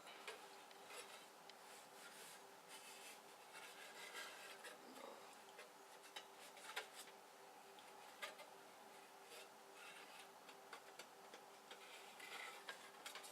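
Faint rubbing with scattered small clicks, close to silence, over a faint steady hum: a glass porch-light fixture being cleaned by hand.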